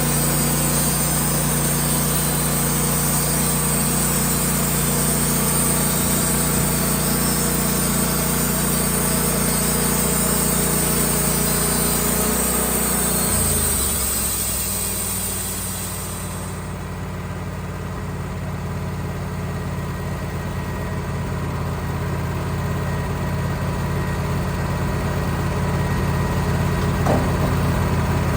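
Sawmill engine running steadily with the hiss of the blade cutting through a poplar log; about thirteen seconds in the engine note shifts, and a few seconds later the cutting hiss stops, leaving the engine running on its own.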